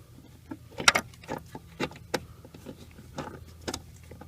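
Irregular metallic clicks and taps of a crescent wrench working the lock nut on a brake light switch, tightening it so the switch doesn't turn; the sharpest click comes about a second in.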